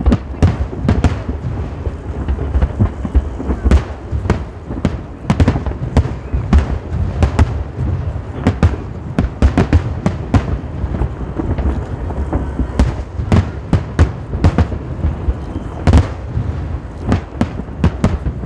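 Fireworks display: shells bursting in a dense, irregular barrage of sharp bangs, a few a second, over a continuous low rumble.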